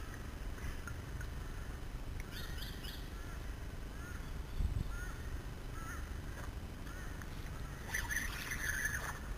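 Birds calling from the bush along the water: a series of short chirps and whistles, then a harsher call near the end, over a low steady rumble.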